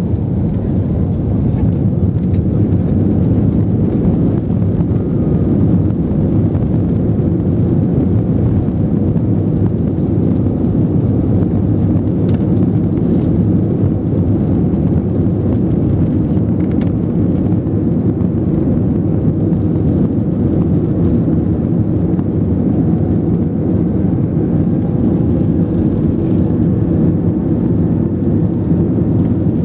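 Airbus A320-200 taxiing, heard inside the cabin: the engines run at taxi power as a steady, loud low rumble.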